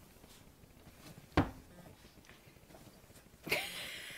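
Australian Shepherd puppy playing with a toy in a nylon-covered dog bed: a single soft thump about a second and a half in, then a short scuffling burst near the end as she tumbles about in the bed.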